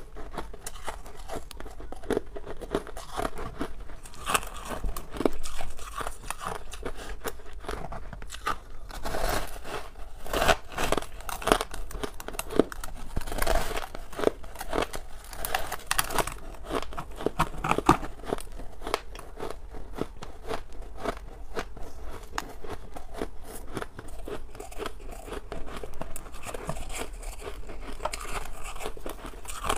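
A person biting and chewing frosty white ice close to the microphone: dense, irregular crunching, loudest in the middle of the stretch.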